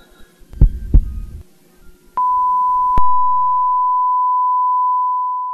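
Heartbeat sound effect, one low double thump. About two seconds in, a heart monitor's steady high flatline tone begins and holds, fading near the end: the signal that the heart has stopped. A low hum beneath cuts off with a click about three seconds in.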